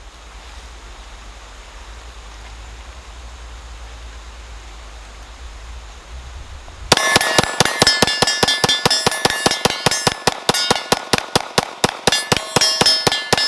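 A Glock P80 9mm pistol fired rapidly, about five shots a second, with metallic ringing clangs from the hits. The string starts about halfway through after a few seconds of low steady background noise and stops abruptly, leaving the ringing to die away.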